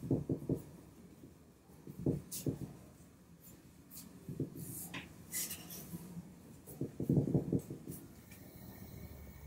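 Bristle paintbrush stroking finish onto a wooden chair seat: short swishing brush strokes in quick groups, coming every couple of seconds.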